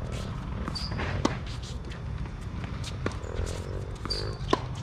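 Tennis rally on an outdoor hard court: sharp racket-on-ball hits, the loudest about a second in and another near the end, with a couple of short high squeaks of tennis shoes on the court and a steady low rumble underneath.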